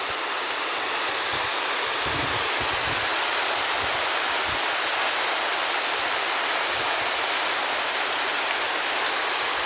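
Small waterfall cascading into a pond, a steady rush of falling water.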